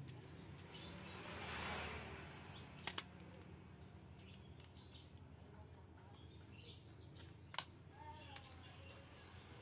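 Faint handling of a plastic desk calculator: a sharp double click about three seconds in and another click later, over a low steady background hum.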